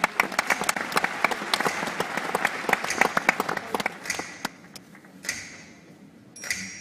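Audience applauding at the end of a song: dense clapping for the first few seconds that thins out and fades away.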